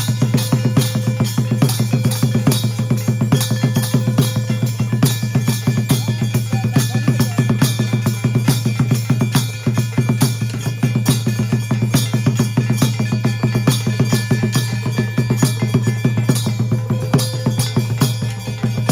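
Puja percussion: fast, steady drumming with rapid, evenly spaced strikes over a few sustained ringing tones.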